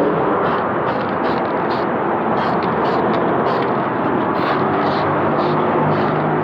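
Sherco TY125 motorcycle engine running steadily.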